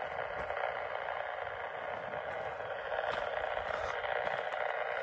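Radio receiver tuned to 430 MHz giving out a steady hiss of static through its speaker, carrying faint electrical interference from the power line that the Yagi antenna is picking up; it grows a little louder about three seconds in.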